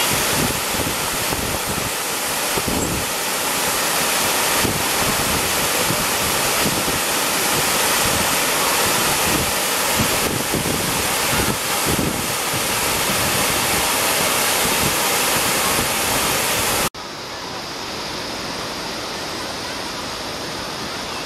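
Steady rushing of river water pouring over a low check-dam cascade. About 17 seconds in it cuts abruptly to a quieter, duller rush.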